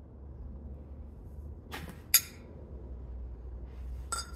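Metal clinks from handling stainless steel exhaust tips: two sharp clinks about two seconds in, then another near the end with a short metallic ring.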